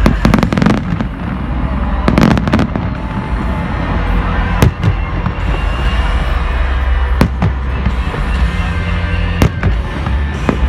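Aerial fireworks shells bursting: a quick cluster of bangs near the start and another about two seconds in, then single sharp bangs every two to three seconds, over a steady low rumble.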